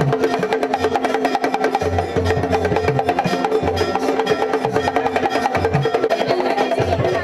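Nepali devotional bhajan music: drums struck in a fast, even rhythm over a held drone.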